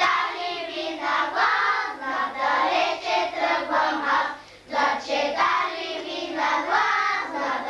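A group of young children singing a song together in unison, in steady rhythmic phrases.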